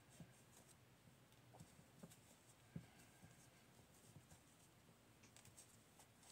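Near silence, with faint scattered soft ticks from a crochet hook working yarn by hand; one tick is a little sharper nearly three seconds in.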